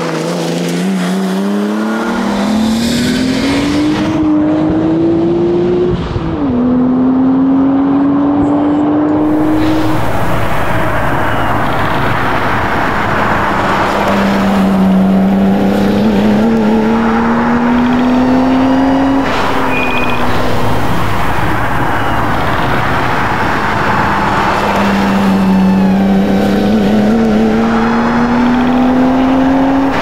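1992 Nissan Skyline GTS-t's turbocharged straight-six driven hard, its note climbing through the revs in long pulls and dropping back at upshifts about six and twenty seconds in and again at the end.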